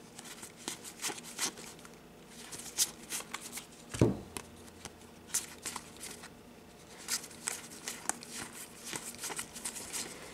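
Board game cards being flipped quickly through by hand from one fanned handful to the other, a run of light, irregular card snaps and slides, with one soft thump about four seconds in.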